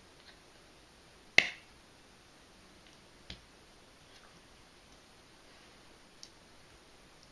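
One sharp crack of hands striking together about a second and a half in, then a much fainter click about two seconds later, over a quiet room.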